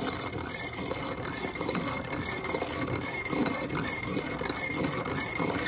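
Hand-cranked piston ring filer grinding steadily, its abrasive wheel shaving the end of a piston ring to widen the ring's end gap to spec.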